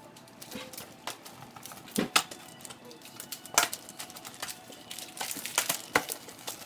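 Wrapping paper crinkling and rustling as hands fold and press it around a cardboard shoe box, with irregular sharp crackles and taps.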